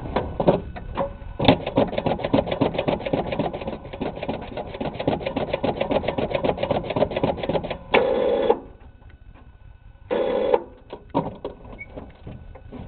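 The 1962 Ford Falcon's 200 cubic inch straight-six is cranked by its starter in a cold start at about 5°F. It gives a quick, even chugging for about six seconds without firing, then two short half-second bursts of cranking. It does not catch; the battery later needs a jump.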